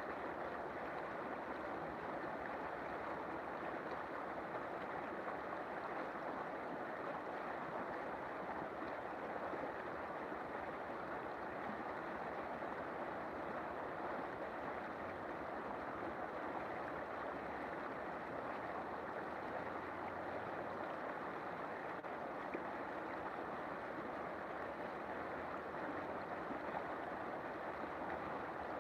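River water flowing, a steady rushing with no breaks or single splashes.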